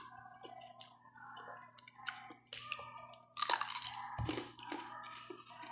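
A person eating up close: wet chewing and mouth smacks of instant noodles, with a louder crunchy bite of raw cucumber a little past halfway and a brief low thump just after.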